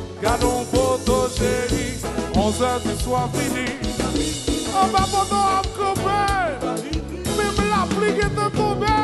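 Live Haitian konpa band playing: electric guitars, keyboard, drum kit and congas, with a singer's voice over the top.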